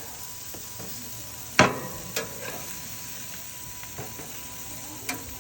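Salmon fillets sizzling steadily on a hot grill, with a few sharp metallic clicks, the loudest about one and a half seconds in and smaller ones after it.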